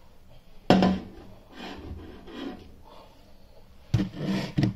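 Hands working bread dough on a floured board: a sharp knock about a second in, rubbing and pressing, then two more knocks near the end.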